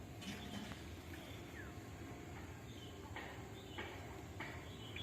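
Birds chirping: short high chirps and peeps repeated every half second or so, some falling in pitch, over a steady low background hum.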